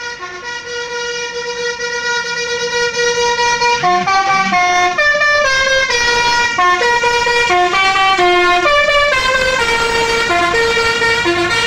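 A bus's multi-tone 'telolet' air horn playing a tune of held notes that change in steps, growing louder about three to four seconds in.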